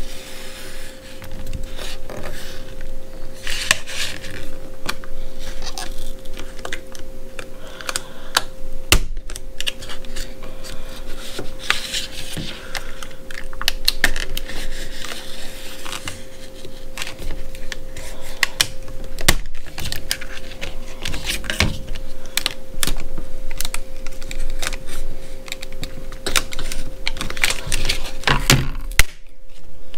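Box cutter cutting through a hard plastic blister pack, with dense irregular crackling and clicking of the plastic. A steady low hum runs underneath.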